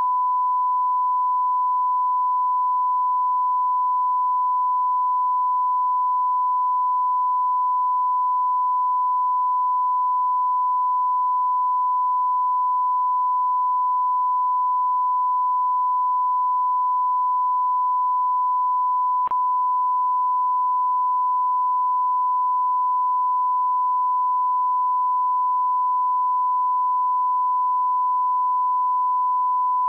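Steady 1 kHz sine-wave test tone, one unbroken pitch at a constant level: the audio line-up tone that goes with a television test card. A faint click about two-thirds of the way through.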